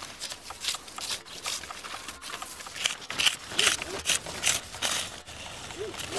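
Dry reed stalks rustling and crackling as they are handled, an irregular run of sharp snaps and rustles.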